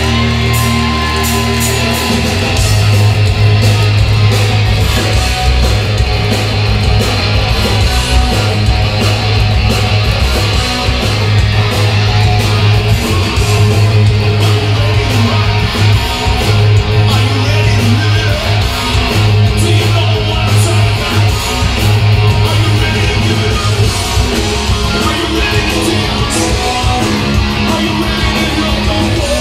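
Loud rock music with guitar and a heavy bass part that gets louder about two seconds in.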